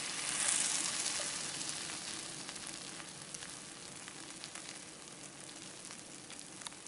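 Slices of bread toasting in butter and oil in a nonstick frying pan: a steady sizzle with light crackles that slowly fades.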